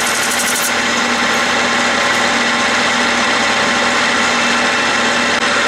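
Clausing metal lathe running and taking a turning cut on a pulley hub: a steady machine hum with a constant tone, mixed with the hiss of the tool cutting as curled chips come off.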